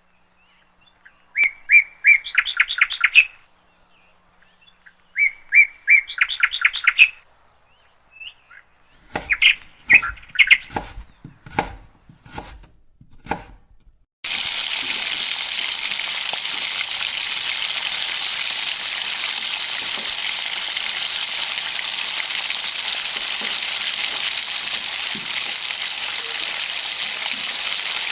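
Two short trills of quick chirping notes, then a run of sharp clicks and knocks, then a sudden start of a steady sizzle of food frying in hot oil that lasts the rest of the time.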